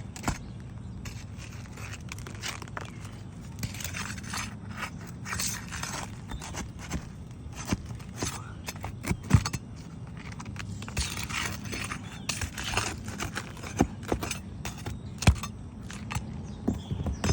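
Asphalt roof shingles being pried up and unsealed with a hand tool to get at their nails: repeated scraping against the shingles, with scattered sharp clicks and knocks, a few of them louder in the second half.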